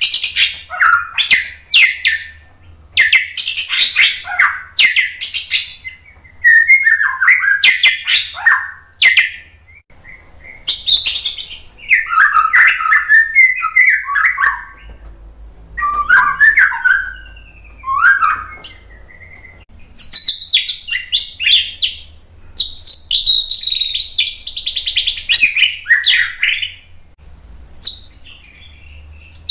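White-rumped shama singing: a run of loud, varied phrases of whistles, trills and chatters, each lasting one to a few seconds, with short pauses between them.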